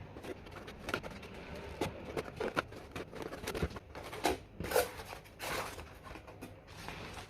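Irregular small clicks and knocks mixed with short rustling, scraping sounds of something being handled close up, with the rustles coming more often in the second half.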